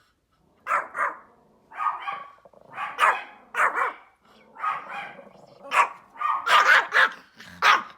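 Small Pomeranian dog barking repeatedly in short, sharp, high-pitched barks, in clusters of one to three with brief pauses between. The dog is barking at deer.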